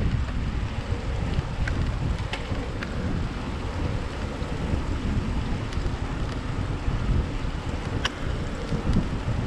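Wind buffeting the microphone: a steady, gusting low rumble, with a few faint clicks.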